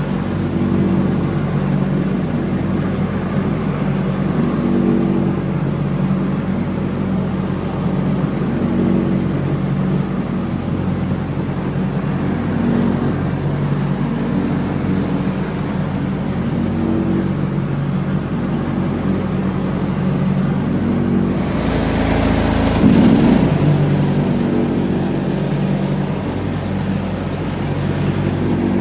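John Deere X304 riding lawn tractor running under mowing load, its engine hum swelling and easing every few seconds. About three quarters of the way through there is a brief, louder rush of noise.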